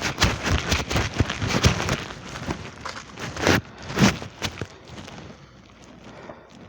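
A rapid, irregular run of sharp clicks and knocks that thins out after about four seconds.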